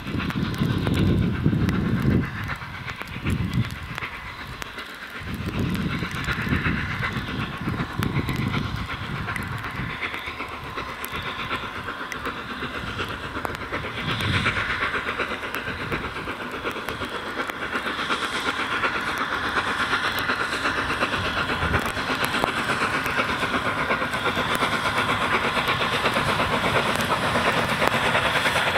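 A train running past on the rails: heavy uneven rumbling for the first several seconds, then the steady rolling of carriage wheels over the rail joints, growing a little louder near the end.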